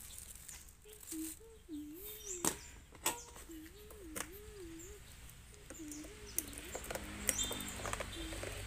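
Small birds chirping in short, high calls, over a low wavering tone that rises and falls about twice a second, with a few sharp clicks.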